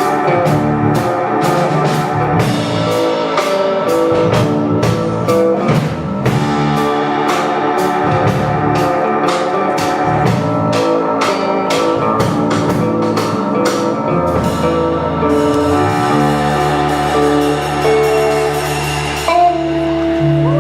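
Live band playing an instrumental passage on guitar, bass and drum kit, with regular drum and cymbal strokes; the drums drop out about three-quarters of the way through and the band holds long ringing notes to close the song.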